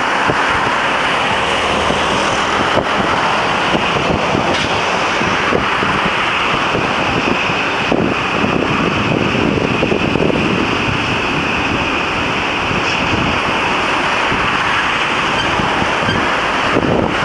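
Freight train hauled by a DD51 diesel locomotive running past close by: a loud, steady rush of wheels on rail.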